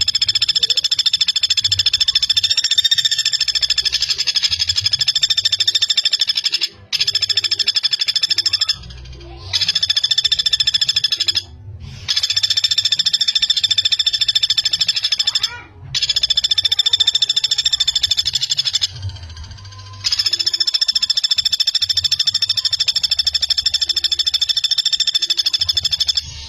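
Common flameback woodpecker giving long, fast rattling trills of tightly packed notes, in six runs of a few seconds each separated by short pauses.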